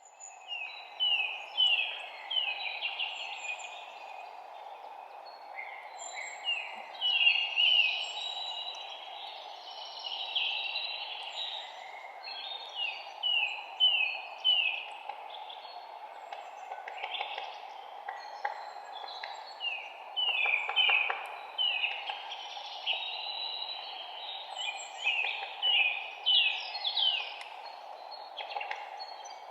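Several songbirds singing, many phrases made of short down-slurred notes repeated three to five times in quick runs, with higher squeaks between, over a steady low background noise.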